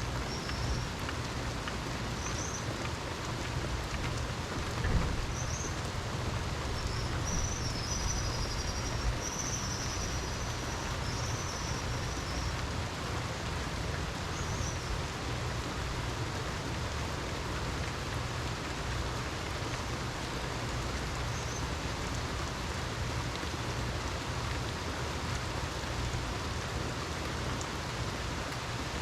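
Steady rain falling, with a low steady rumble underneath and a single low thump about five seconds in.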